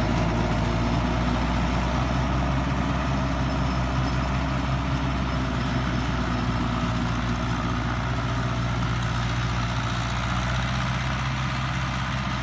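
Farmtrac 6055 tractor's diesel engine running steadily while it drives a rotavator tilling the field, easing slightly in level as the tractor moves off.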